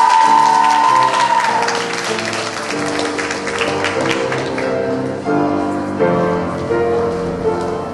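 Audience applauding over instrumental music. The clapping is dense at first and thins out about halfway through, while the music carries on.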